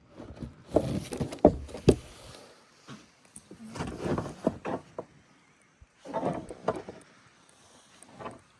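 A sleeping goat snoring: rough breaths in a slow rhythm, about one every two seconds. The first is the longest and loudest, with sharp clicks in it.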